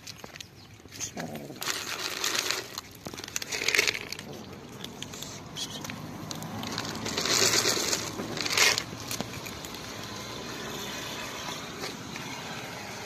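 Several kittens eating dry cat kibble: irregular crunching and scuffling, with a few louder bursts of rustling noise.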